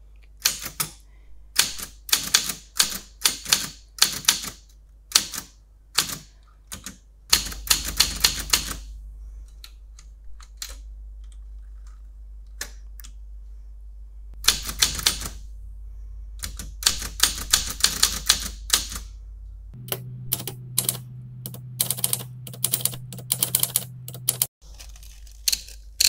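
Portable typewriter being typed on, its typebars striking the platen through a sheet of tissue paper in quick runs of keystrokes with short pauses between them. A low steady hum sits under the typing for a few seconds near the end.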